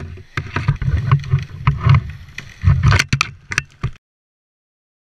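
Loud, uneven rushing and rumbling on a helmet-mounted camera as a tree climber comes down his rope fast, with sharp knocks and clicks from gear and rubbing. It cuts off suddenly about four seconds in.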